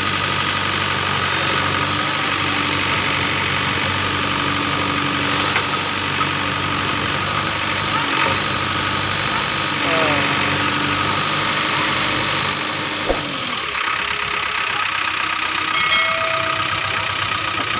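Mahindra 265 tractor's diesel engine running steadily under load while pulling a soil-laden trolley stuck in mud. The engine note eases about thirteen seconds in.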